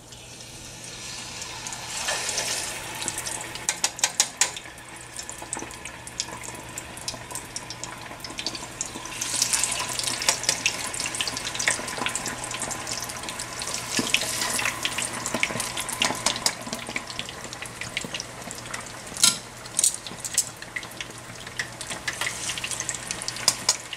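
Chicken wings deep-frying in a pot of hot oil: a dense sizzle and crackle that builds about two seconds in as the wings go into the oil, with sharp pops throughout.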